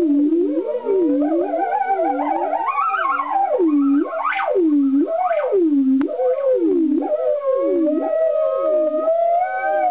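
Burns B3 theremin played through a Korg PX-3 effects processor and a Fender Automatic guitar amp: an electronic tone swooping down and up in pitch about once a second, with two sharp upward shrieks about four and five seconds in. Near the end it settles into a wobbling tone that slowly rises.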